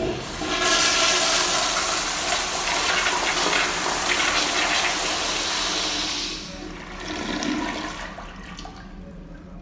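Commercial flushometer toilet flushing: a click at the start, then a loud rush of water for about six seconds, dropping off into a quieter swirl and gurgle as the bowl drains.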